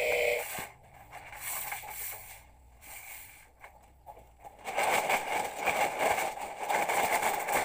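Mitre saw motor whining as it cuts aluminium shutter slat, stopping abruptly about half a second in. About five seconds in, a loud, rough noise with no clear pitch, made of many small clicks, begins and carries on.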